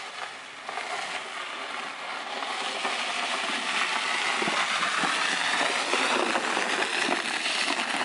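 Plastic sled scraping over an icy paved driveway, growing louder as it slides closer.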